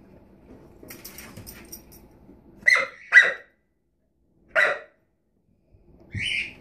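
Lab–pit bull mix puppy barking at a kitchen drawer: three loud barks about a third of the way in, after faint shuffling, then a shorter, higher yelp near the end.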